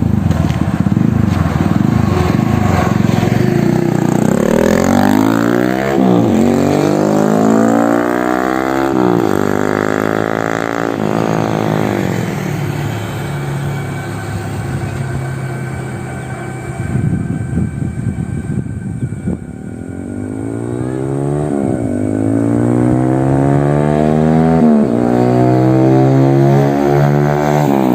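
TVS Apache RTR 160's single-cylinder four-stroke engine breathing through an aftermarket SC Project-style silencer with a catalytic-converter insert, revving up and down several times. It drops somewhat quieter around the middle, then builds up again with rising revs near the end.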